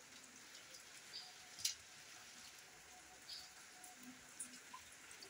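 Very quiet: a few faint snaps and clicks, one sharper about one and a half seconds in, as pak choy leaves and stems are broken up by hand over a metal pan.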